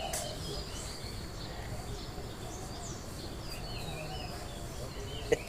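Birds chirping over steady outdoor background noise. A sudden loud sneeze breaks in at the very end.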